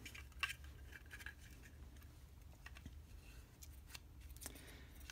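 Faint clicks and light handling of a small plastic LED trailer-light housing as its circuit board is lifted out, over a low steady hum.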